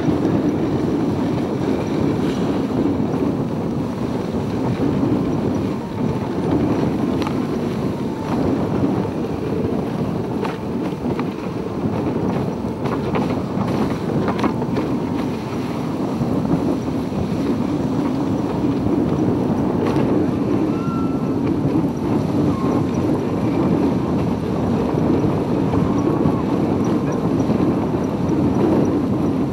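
Steady rushing noise of a dog sled running fast over snow: the runners scraping and hissing on the snow, with wind buffeting the microphone. A few faint knocks come in the middle.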